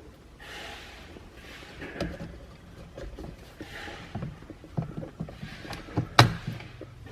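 Handling knocks and soft breathy hisses as the driver's airbag module is pressed into the BMW E70 X5 sport steering wheel, then one sharp click about six seconds in as the module latches into place.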